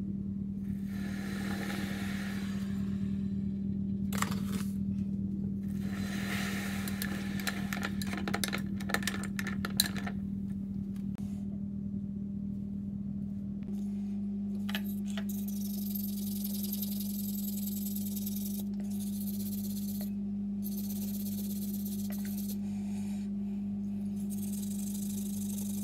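A steady low electrical hum. Over it come stretches of scraping and clicking in the first ten seconds, and a high hiss in the second half.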